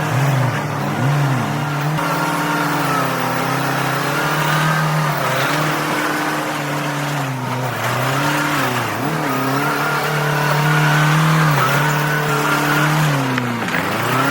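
Engine of heavy construction machinery running steadily, its pitch dipping briefly and recovering several times, as when the engine is loaded.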